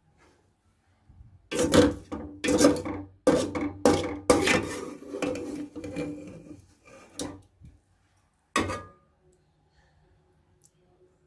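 A slotted serving spoon scrapes and knocks against a metal cooking pot as curry is ladled out and spread over rice. There is a quick run of strokes for several seconds, then a single knock a little later.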